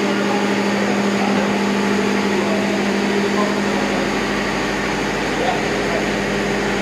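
Ship's engine-room machinery running with a steady drone, a strong low hum held at one pitch throughout.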